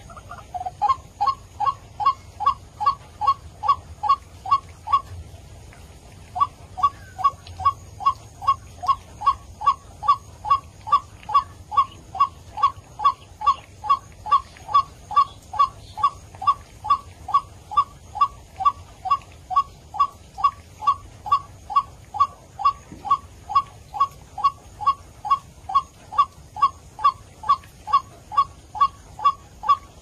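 White-breasted waterhen calling a monotonous 'ruak-ruak': a short rising note repeated about twice a second, with a break of about a second a little after five seconds in.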